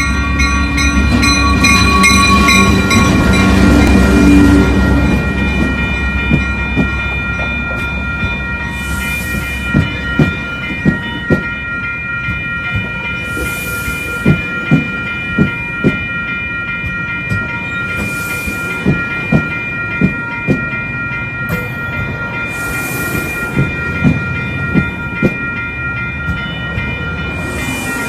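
A Coaster commuter train led by an F59PHI locomotive, with its EMD 12-cylinder diesel, passes close by. The locomotive's engine rumble is loudest in the first few seconds. Then the bilevel coaches roll past, their wheels clacking over rail joints in quick clusters, over a steady high ringing.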